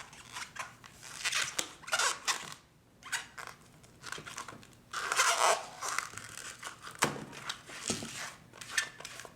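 Latex twisting balloon squeaking and rubbing in the hands as it is tied and worked into an apple twist, in short irregular scrapes with a louder stretch about halfway through.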